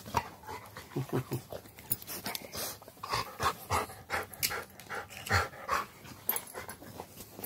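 A golden retriever–pitbull mix dog panting and licking at close range, in quick, irregular wet strokes.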